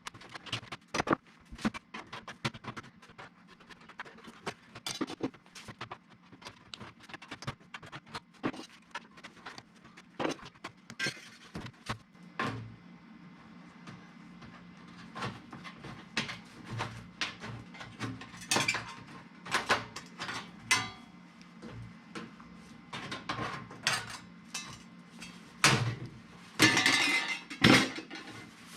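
Irregular clicks, taps and light clatter of small hard parts and tools being handled during duct work. A steady low hum comes in about twelve seconds in and runs under them.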